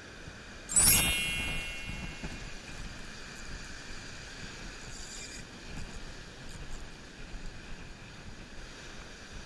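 Surf washing over rocks, with wind on the microphone. About a second in comes one sharp, ringing metallic clink, the loudest sound, which dies away over about a second.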